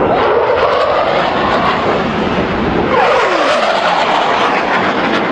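Fighter jet's engine roar during a low fly-by, with a whine that falls in pitch about three seconds in as the jet passes.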